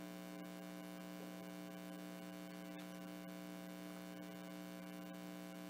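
Steady electrical mains hum: a few held low tones that do not change, over a faint even hiss.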